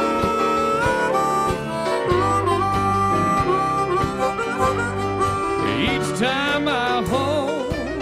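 Harmonica playing an instrumental lead of held notes over a western swing band's rhythm section, with a steady drum beat. About six seconds in, a wavering lead line with heavy vibrato comes in.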